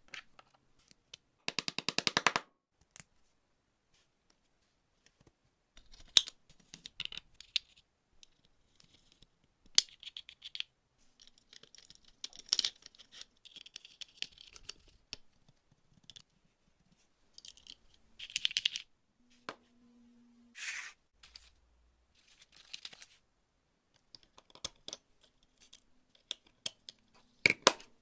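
Intermittent scraping and rasping of hand work on a small object, broken by sharp clicks and short pauses, with a fast rattling burst about two seconds in.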